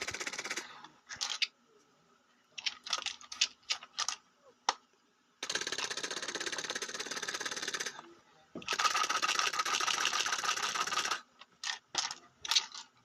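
Mouth-made imitations of rapid automatic gunfire: long rattling bursts, each a few seconds long, starting and stopping abruptly, three in all. Between the bursts come quick plastic clicks and clacks from handling toy guns.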